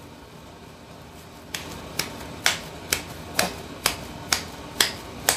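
A handful of ground beef-and-pork patty mix slapped between gloved palms to shape a burger patty and press the air out: nine sharp slaps, about two a second, starting a second and a half in.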